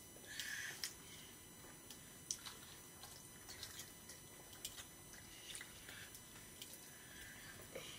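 Quiet eating sounds: fingers squishing rice and curry on metal plates, with scattered light clicks and a little chewing.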